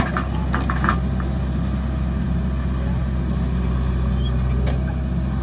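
Diesel engine of a JCB 3DX backhoe loader running steadily as its backhoe bucket digs into soil, with a few sharp knocks in the first second.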